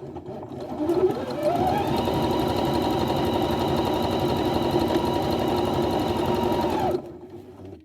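Electric sewing machine stitching a row of hair wefts onto a wig. It starts about a second in, its motor whine rising quickly to speed, runs at a steady pace, then stops sharply near the end.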